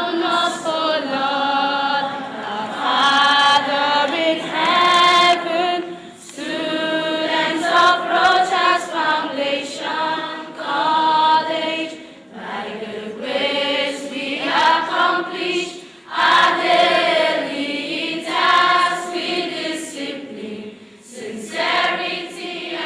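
A choir singing in long held notes, in phrases of a few seconds separated by short breaths.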